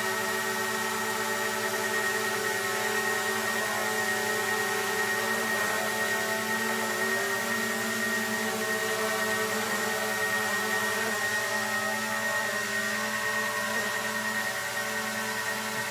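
Small quadcopter drone hovering, its propellers giving a steady whine made of several held tones, the pitch shifting slightly now and then.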